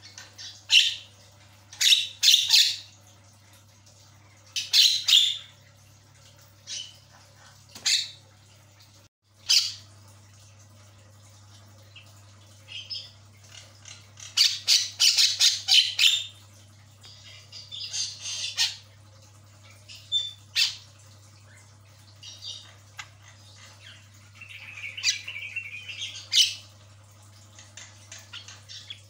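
Javan myna calling: irregular harsh squawks and chattering calls. There is a fast run of calls about halfway through and a lower, warbling passage near the end.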